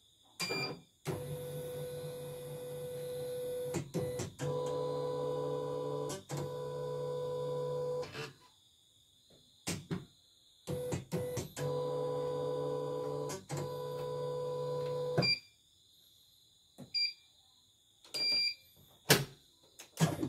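CNY portable computerised embroidery machine's embroidery unit moving its carriage arm under motor drive, a steady whine in two long runs, with short electronic beeps from the machine in between. The technician judges it to be running normally.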